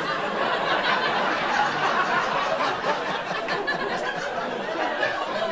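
Comedy club audience laughing, a sustained wave of crowd laughter that holds at a steady level.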